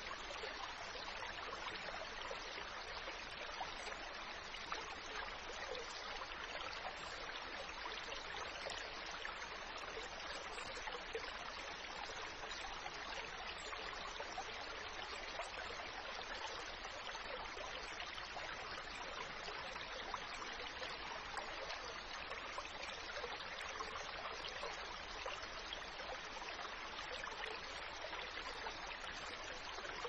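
A steady rush of flowing, trickling water, even in level with no breaks or changes.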